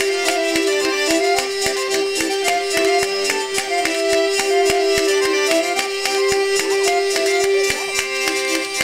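Live traditional folk music: a hurdy-gurdy's steady drone and bowed-sounding melody together with a bayan button accordion, over a quick, regular clicking beat.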